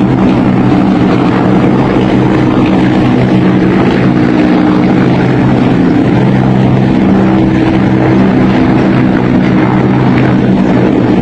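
A formation of many military helicopters flying overhead: a loud, steady drone of rotors and turbine engines, with several low tones held throughout.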